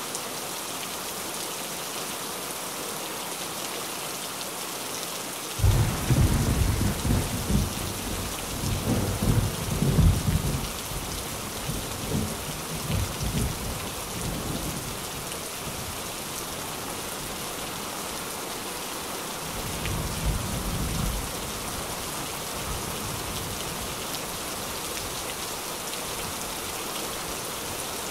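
Steady rain falling on a tin roof. Thunder breaks in suddenly about six seconds in and rumbles on for several seconds, and a second, weaker rumble comes about two-thirds of the way through.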